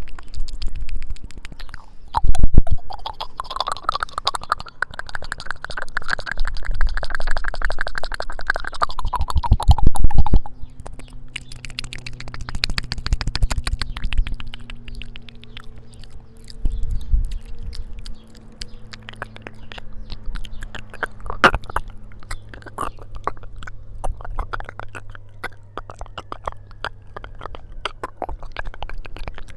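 Close-miked ASMR mouth sounds: wet lip and tongue clicks, with a fast, dense run of clicking through the first third. A low steady hum sits under the sparser clicks that follow.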